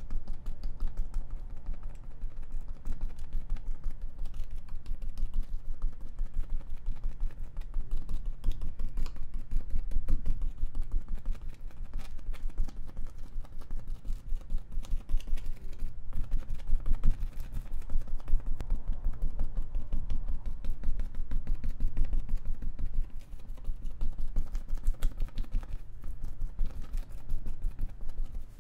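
Small paintbrush dabbing and stroking acrylic paint onto a stretched canvas on an easel: a quick, continuous run of soft taps and scratches of bristles against the canvas.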